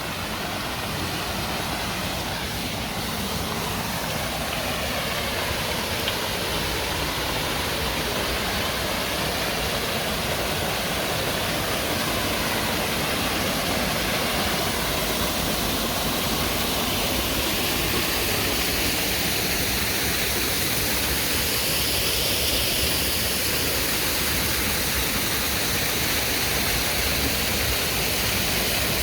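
Creek water pouring over an old sawmill dam: a steady, unbroken rush of water.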